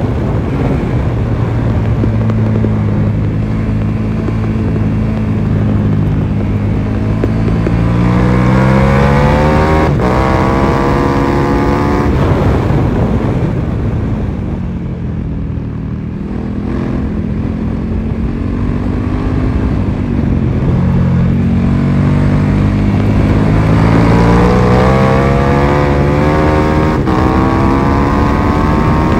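Onboard sound of a KTM 1290 Super Duke R's V-twin engine ridden hard on track, with wind rushing over the microphone. The engine pulls steadily, climbs through the revs with quick upshifts, then the revs fall away as it slows into a corner, and it winds up again, shifting up, accelerating out.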